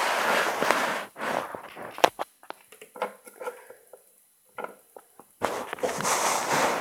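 Rustling handling noise, with scattered small clicks and taps as plastic toy figures are moved and set down on a carpet. There is a longer stretch of rustling at the start and again near the end.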